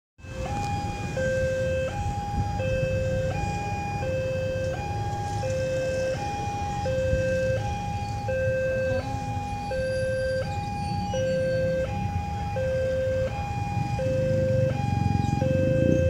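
Railway level-crossing warning alarm sounding a steady two-tone hi-lo signal, a low and a higher tone alternating evenly, each lasting under a second: the warning that a train is approaching. Under it runs a low rumble that grows louder near the end.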